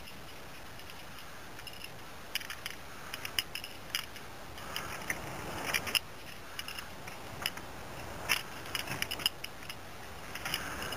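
Irregular clinks and scrapes of a climber's gear and boots on the slope, starting about two seconds in over a faint steady hiss.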